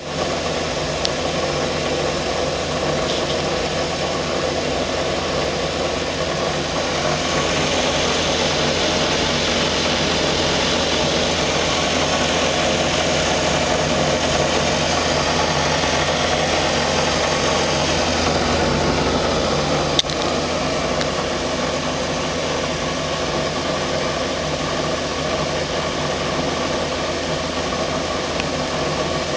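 Takagi TK-3 gas tankless water heater running with a loud, steady mechanical drone and vibration: the abnormal noise fault that stops when the water flow is shut off and the unit cycles down. A single sharp click about two-thirds of the way through.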